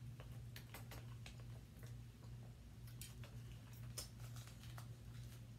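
Quiet eating sounds: scattered small clicks and smacks as turkey leg meat is picked apart by hand and chewed, over a steady low hum.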